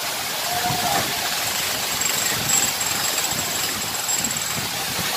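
Kempty Falls waterfall pouring steadily close by: a constant, even rush of falling water.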